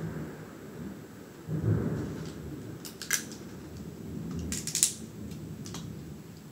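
Snow crab leg shells cracked and snapped apart by hand: a few sharp cracks, the loudest about three seconds in and again near five seconds, over a low rumble.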